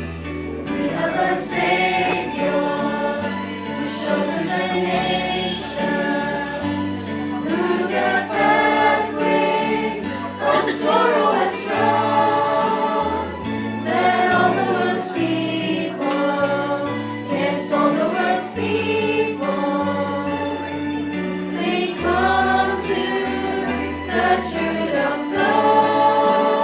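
A Christian song with a group of voices singing over a backing track with a stepping bass line.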